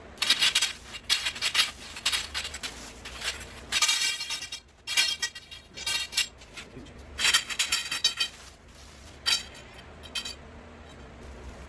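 Metal grow-tent frame poles clinking and knocking together as they are handled, in a series of irregular bursts that die away near the end.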